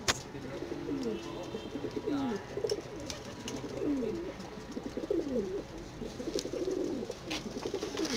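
A loft full of domestic pigeons cooing, many low rolling coos overlapping one after another. A sharp click comes right at the start.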